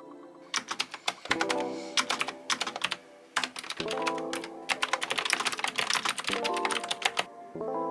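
AZIO Retro Classic mechanical keyboard with clicky blue switches being typed on in quick runs of keystrokes, with a brief pause about three seconds in, over background music.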